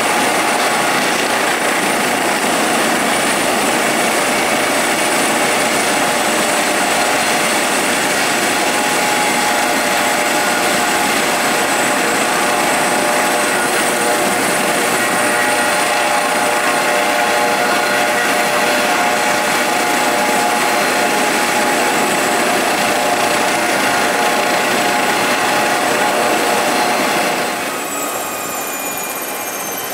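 Airbus Helicopters EC155 B1 running on the helipad with its rotor turning: a steady loud turbine whine over rotor noise, mixed with a Eurocopter Ecureuil flying close by. Near the end the sound drops in level and a high whine slides down in pitch.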